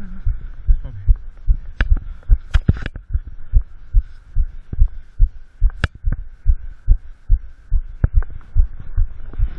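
Handling noise from gloved hands against a chest-mounted action camera: a run of low thumps, several a second, with sharp clicks among them.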